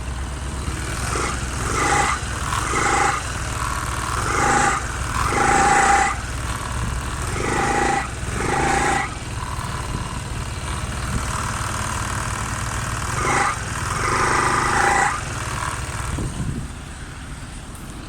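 Kymco Agility 50 moped engine running at idle, with about nine short throttle blips that each briefly raise the sound. The owner hears strange, endless rattling ("komische Klappern") from it and says it has become very slow when pulling away.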